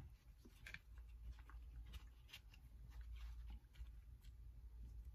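Faint, scattered light clicks and scrapes of a small metal retaining clip being worked onto a fuel injector seated in a fuel rail, as the clip is pushed over the ridge to lock the injector in.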